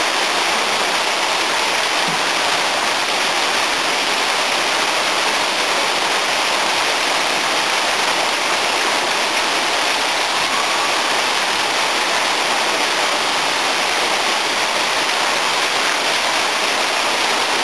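Steady, even rush of running water, like a small waterfall or stream pouring into a pool.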